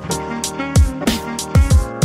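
Electronic background music with a steady beat: deep kick drums that drop in pitch, sharp snare hits and held synth chords.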